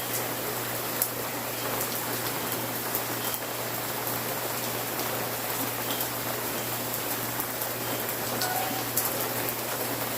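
Steady rain falling: a dense, even hiss with a few sharp drop ticks here and there.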